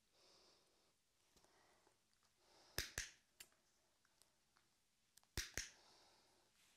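A dog-training clicker clicked twice, about three seconds in and again near the end. Each is a quick double click, marking the puppy for lifting one paw onto the platform.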